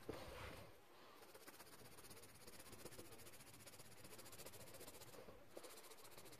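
Near silence: a faint steady hiss, with a brief soft rustle at the very start.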